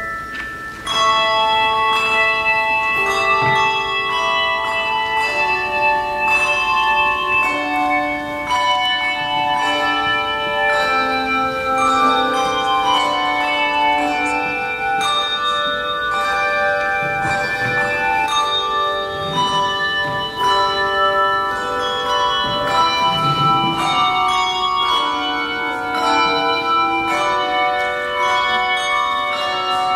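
Handbells playing a piece of music: notes struck one after another and left ringing, several sounding together in chords.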